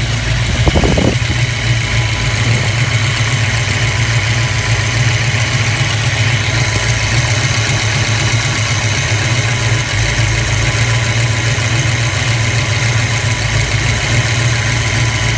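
1992 Ford Mustang's 5.0 V8 idling steadily at operating temperature, with its ignition locked at fixed timing for setting base timing.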